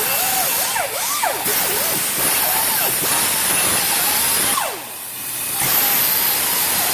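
Pneumatic die grinder with an abrasive brush scrubbing rust off a rear wheel hub. It gives a steady high hiss and whine whose pitch drops each time it bears on the metal, and it eases off briefly just before five seconds in.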